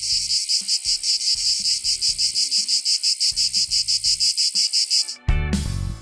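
Chorus of Brood X periodical cicadas: a loud, high-pitched buzz that pulses about eight times a second. It cuts off abruptly about five seconds in.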